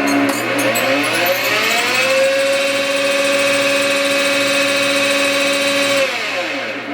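Schaublin 102-80 lathe drive running on its two-speed motor: the whine climbs in pitch over about a second and a half as the drive speeds up, holds steady, then falls back near the end as it slows. It runs a little loud, and the owner is unsure whether the drive is at fault.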